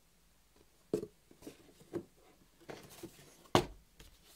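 Thick cardboard token sheets being handled and laid down: about five light knocks and rustles, the sharpest about three and a half seconds in.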